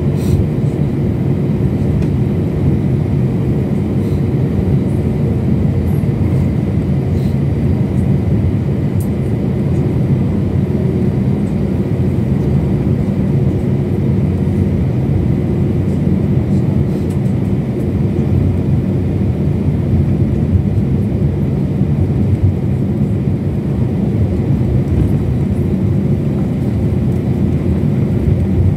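Steady, loud rumble of an airliner's engines and airflow heard from inside the passenger cabin, with faint steady tones over it and no change in pitch or level.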